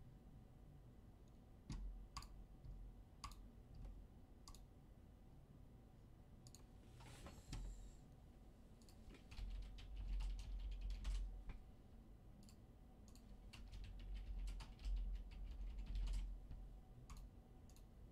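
Typing on a computer keyboard. A few separate key clicks come in the first seconds, then a short noise, then two runs of quick typing around the middle and near the end.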